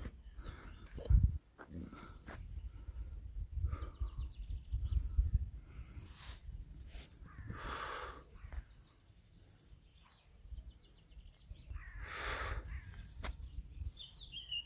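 A cricket chirping steadily in an even, high-pitched pulse train in a grassy meadow. Wind and handling rumble on the microphone, with a sharp thump about a second in and two brief rushing noises later.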